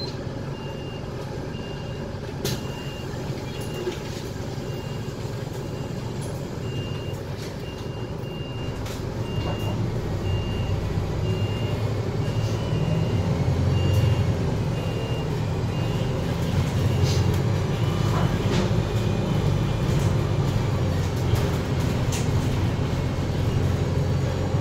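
KL6850A2 low-floor midibus heard from inside the cabin: the engine runs quietly at first, then grows louder about ten seconds in as the bus pulls away and builds speed. Through the first two-thirds a high electronic beep repeats at a steady pitch, then stops.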